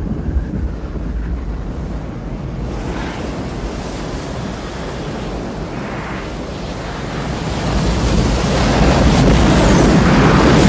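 Film sound effects of a giant tsunami wave bearing down: a deep, steady roar of rushing water and wind that swells louder about eight seconds in.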